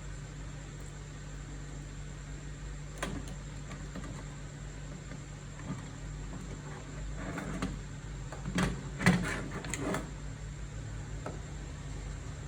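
Scattered clicks and light rattles of handling over a steady low hum: one click about three seconds in, then a busier run of clicks a little past the middle, the loudest just after nine seconds.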